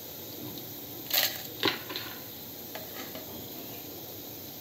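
Cumin seeds sizzling and spluttering in hot oil in a kadai, a steady low fizz with two sharper pops a little over a second in.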